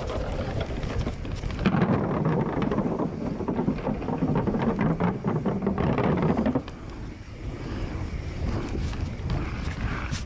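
Mountain bike rattling over a rough, rooty trail: a dense clatter from the tyres, chain and frame, mixed with wind buffeting the camera microphone. It is loudest from about two to six and a half seconds in.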